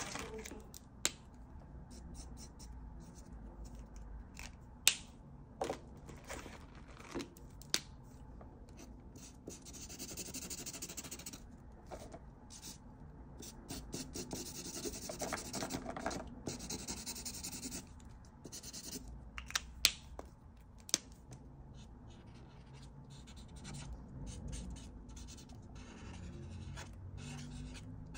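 The nib of an Ohuhu alcohol marker scratches and rubs across paper in stretches of colouring strokes. Now and then there is a sharp click as the markers are handled.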